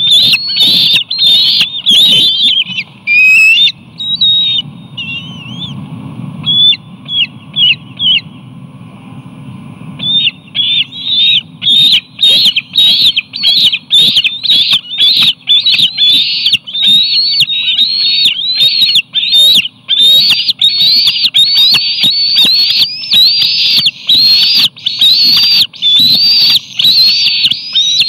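Juvenile bald eagles in the nest calling over and over, high, shrill, rising-and-falling cries about two a second, the food-begging calls of hungry eaglets. The calls fall off for a few seconds a little before the middle, then go on steadily, over a low steady rumble.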